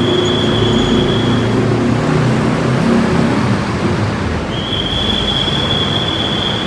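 Engines of buses and trucks running as they roll off a ferry's vehicle deck, a steady low drone. A steady high-pitched tone sounds twice, first for about a second and a half at the start, then for about two seconds near the end.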